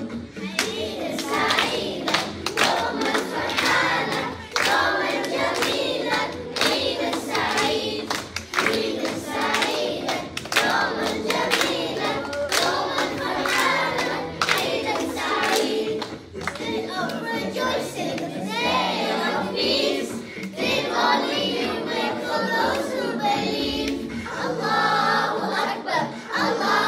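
A children's choir singing together, with regular hand claps keeping time over backing music with a low bass line.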